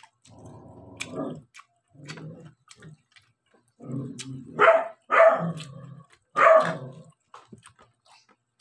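A dog barking: a few softer calls in the first half, then three loud barks in the second half.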